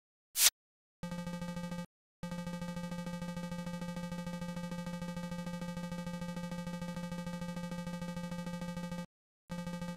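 A short sharp burst of noise, then a synthesized retro text-scroll sound effect: a fast stream of electronic blips at one steady buzzing pitch that plays while on-screen text types out, breaking off briefly twice.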